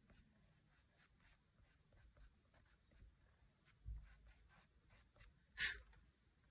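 Faint scratchy rubbing of an eraser on drawing paper in many short strokes, lifting charcoal back out of a shaded area. There is a soft low thump about four seconds in and a brief, louder scuff near the end.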